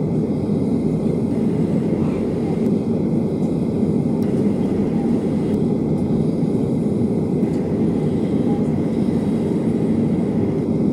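Cabin noise inside a Boeing 737-800 taxiing after landing: a steady low rumble from its CFM56-7B engines at taxi power, heard through the cabin.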